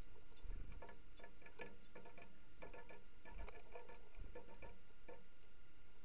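Small birds pecking seed from a metal roasting tin: an irregular run of light taps, about two or three a second, that stops about five seconds in.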